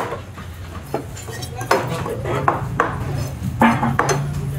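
Fishmonger's knife striking and scraping on a wooden chopping block as small trevally are cut into pieces: a handful of sharp, irregular knocks and metallic clinks, over a steady low hum.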